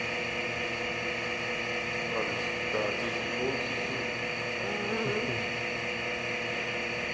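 Subway train car running: a steady mechanical whine over a low rumble, with faint voices in the background.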